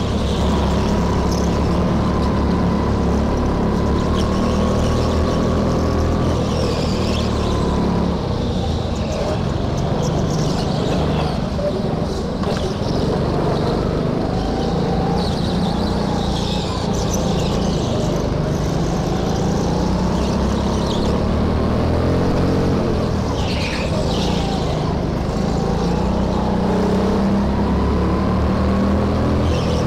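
Go-kart engine running hard through a lap, its pitch rising and falling as it accelerates and slows for the corners, with a few brief high-pitched squeals.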